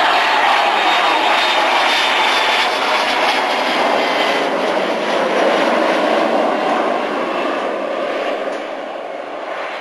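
Rolls-Royce Spey turbofans of a Grumman Gulfstream II-B on landing approach, a loud steady jet noise with a high whine that slides slightly lower in pitch as the jet passes. The sound fades over the last couple of seconds as the aircraft moves away down the runway.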